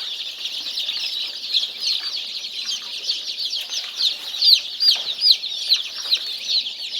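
A large flock of Golden Misri chicks peeping nonstop: many short, high chirps overlap, and several louder peeps stand out in the middle.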